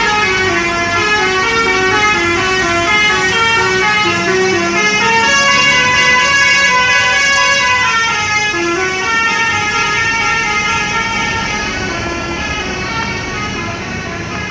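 Basuri 'telolet' multi-tone bus horn playing a melody of stepped notes that change several times a second. The tune runs for about nine seconds, then the sound fades.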